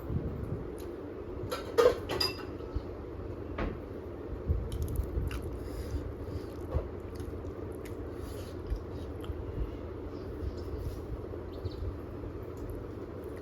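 Eating sounds: quiet chewing and mouth noises with scattered small clicks, and a brief clink of a dish or plate about two seconds in, over a steady low room hum.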